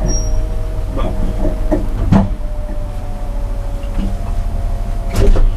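BMW E36's engine idling steadily in neutral at about 800 rpm, a low rumble heard from inside the cabin. A few short knocks sound over it, the loudest near the end.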